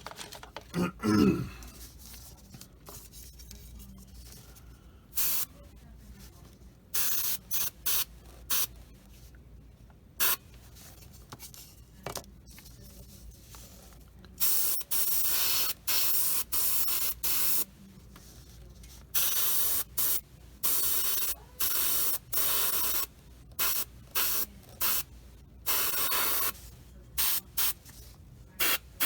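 Airbrush spraying acrylic paint in repeated on-off bursts of hiss as the trigger is pressed and released, a few short bursts first, then longer, closer-spaced ones. A brief low sound about a second in.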